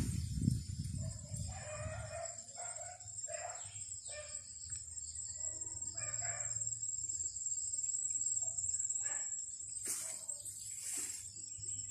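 Chickens calling in the background, with a rooster crowing, the clearest calls about two and six seconds in, over a steady high-pitched whine. Low handling and brushing noise in the first two seconds.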